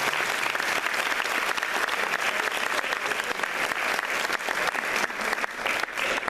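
Audience applauding: many people clapping together, steady and dense.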